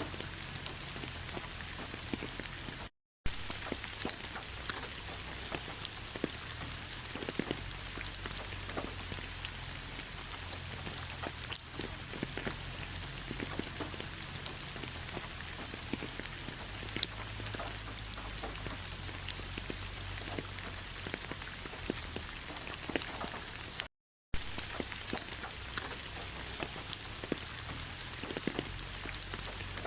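Steady autumn rain falling on fallen leaves, a continuous patter of many small irregular drop ticks. The sound drops out to silence twice, briefly, about three seconds in and again near the 24-second mark.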